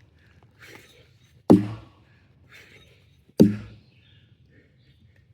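Axe chopping wood: two heavy blows land about two seconds apart, each a sharp thunk with a short ringing decay, with softer knocks between them.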